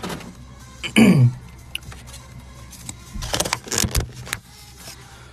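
A brief falling vocal sound about a second in, then a spell of clicking and rustling from things handled close to the microphone, over a steady low hum.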